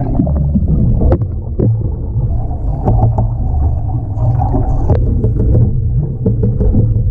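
Sound heard under water inside a boat's live bait tank: a steady, muffled low rumble of churning water, with a few sharp knocks.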